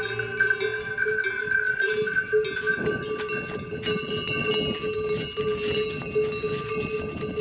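Yak neck bells clanking and ringing steadily as pack yaks walk. From about three seconds in, hooves tramping on the snowy trail join in.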